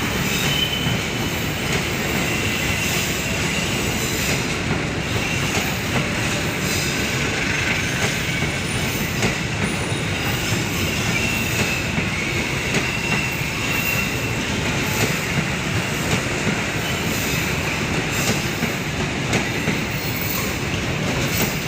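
Passenger train cars passing close by with a steady rumble, wheels clacking over rail joints now and then and a faint thin wheel squeal at times.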